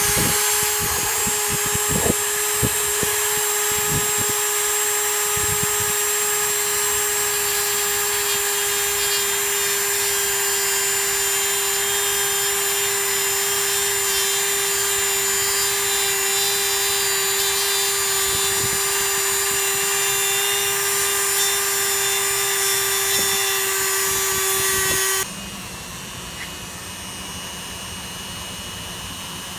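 Dremel rotary tool spinning a 540 cutoff wheel at high speed, cutting a slot into a clear plastic GoPro housing: a loud, steady whine. About 25 seconds in it drops suddenly to a quieter, lower steady run of the same tool fitted with a 520 polishing wheel.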